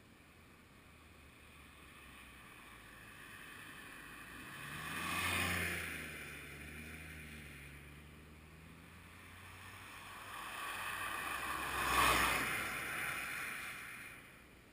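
Two vehicles passing by in turn, each rising to a peak of tyre and engine noise and then fading: the first about five seconds in, the second, louder, about twelve seconds in.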